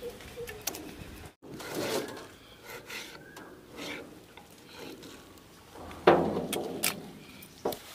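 Food-preparation handling sounds: banana flower florets being pulled and handled, and a knife slicing raw potato on a wooden board. A louder sudden knock comes about six seconds in.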